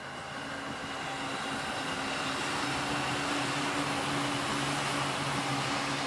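Steady mechanical rumble with a low hum, growing louder through the first few seconds and then holding steady, typical of a motor vehicle running some way off.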